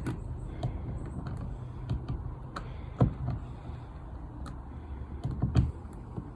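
Irregular light taps and clicks of hard objects being handled and set in place, with a louder knock about three seconds in and another at about five and a half seconds.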